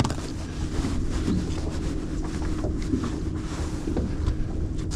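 Fishing boat's engine running steadily at low revs, with a faint held tone, under wind on the microphone.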